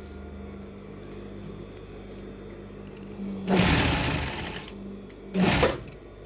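Electric sewing machine stitching in two runs, a longer one about three and a half seconds in and a short one near the end, with a steady motor hum between them.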